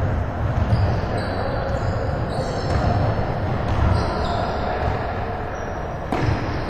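Pickup basketball game in a large gym: a basketball bouncing, with repeated dull thuds, and short high squeaks from sneakers on the court floor, all echoing in the hall.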